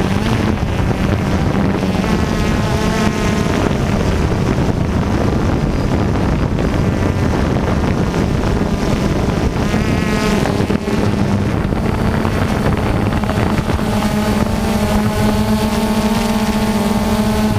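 Radio-controlled off-road cars running on a dirt track, their motors buzzing steadily with the pitch rising and falling as they accelerate and slow for corners.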